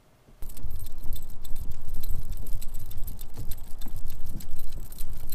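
Metal jingling and rattling from a small dog's leash and harness hardware as the dog walks, over a low, fluctuating wind rumble on the microphone.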